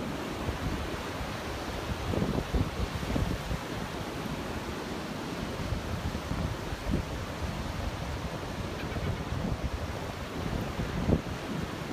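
Ocean surf breaking on a beach as a steady wash of noise, with wind buffeting the phone's microphone in low gusts, strongest about two seconds in and near the end.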